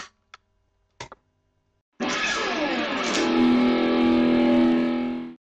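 Guitar intro music: a few short plucked notes, then a loud chord about two seconds in that slides downward in pitch, is held, and cuts off suddenly near the end.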